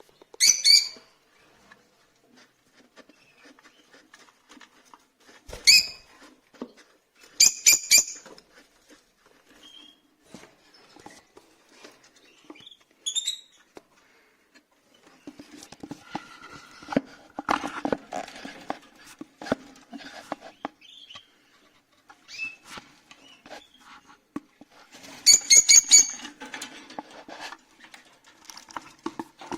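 Rosy-faced lovebirds giving short, shrill, high-pitched calls several times, with rustling and scratching of the birds moving about between the calls.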